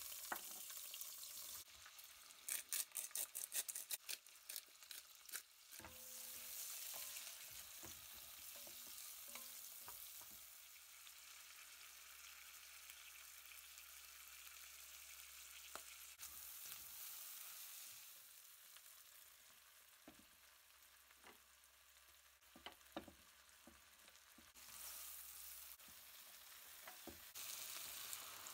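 Onions and vegetables sizzling faintly in oil in an enamelled cast-iron pot. There is a run of quick clicks about two to four seconds in, and scattered light taps later as a wooden spatula stirs the pan.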